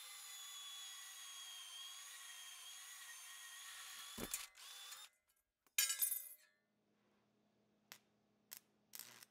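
Portable band saw cutting through steel bar stock: a steady motor whine that stops about five seconds in, with a knock just before it stops, followed by a loud metallic clatter. Near the end, three short bursts of welding over a low steady hum.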